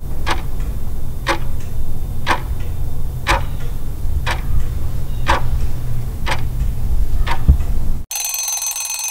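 Countdown clock sound effect ticking about once a second over a steady low hum, marking off the last seconds. About eight seconds in, the ticking gives way to a high alarm-clock ring signalling that time is up.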